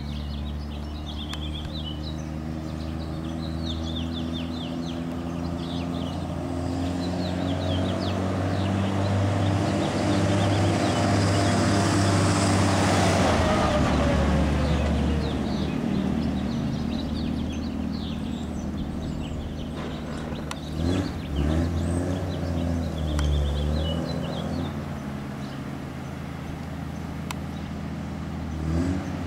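Dodge M37 military truck's flathead straight-six engine running as the truck drives up and passes close by, loudest and dropping in pitch as it goes past about halfway through. It then revs briefly a few times as the truck manoeuvres, and birds chirp in the background.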